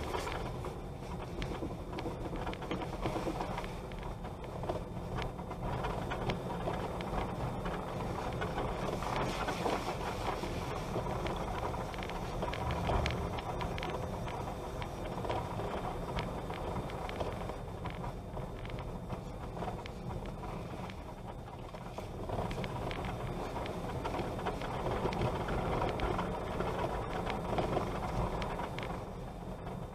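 Steady rumble of a vehicle travelling over a dirt road, with wind buffeting the microphone and frequent small knocks and rattles from the bumps.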